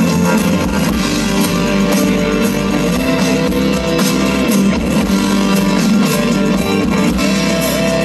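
Live rock band playing an instrumental passage between sung lines: electric guitars, bass guitar, drum kit and keyboards through the stage PA, with the singer's last word at the very start.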